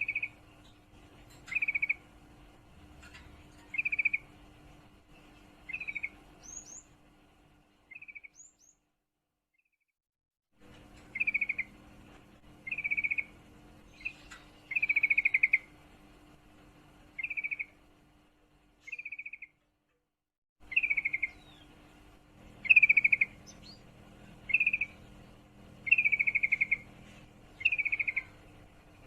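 Yellow-vented bulbul (trucukan) calling: a run of short, quick trilled notes at about one a second, stopping twice for a second or two. The uploader presents it as a female in breeding condition calling a male.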